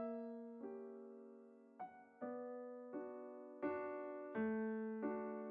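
Background music: a slow solo piano melody, single notes struck one after another and left to ring.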